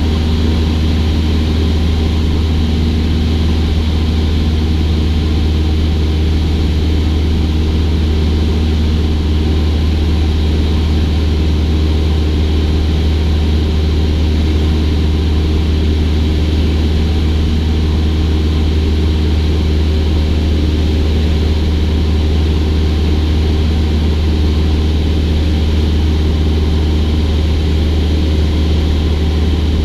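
Cessna 172's piston engine and propeller running at a steady cruise setting, a loud, unchanging low drone.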